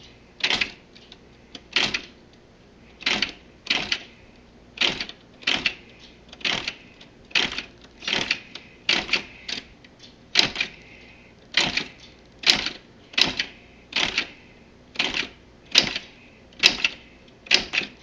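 Antique Smith Corona Standard manual typewriter, its keys struck one at a time: about twenty separate clacks of the typebars hitting the platen, spaced unevenly about half a second to a second apart. The keys are being tried one by one to show that each one works.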